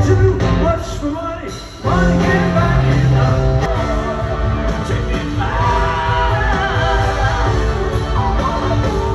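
Live rock band in an arena: a male lead vocalist sings over bass and guitar, heard through the PA from among the crowd. The music dips briefly just before two seconds in, then cuts back in at full level.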